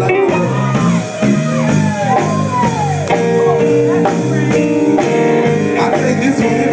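Live gospel group performing a song with band accompaniment: sliding melodic runs over steady held notes, played loud.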